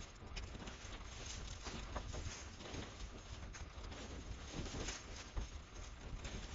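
Cut hedge branches rustling and crashing as armfuls are dragged and thrown off a trailer onto a green-waste pile, with irregular thuds and footsteps on the trailer's metal ramp.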